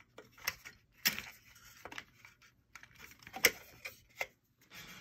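Die-cast Hot Wheels cars clicking and clattering against the plastic compartment walls of a race case as one is worked out of its slot by hand. There are a handful of sharp clicks, the loudest about three and a half seconds in.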